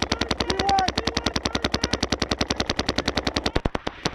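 Paintball markers firing in a rapid, even stream of shots, more than ten a second, which thins out and turns uneven near the end. A faint distant shout comes about a second in.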